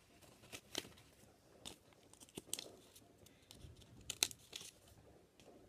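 Scissors snipping through folded paper: a series of short, irregular cuts, some a little louder than others, all faint.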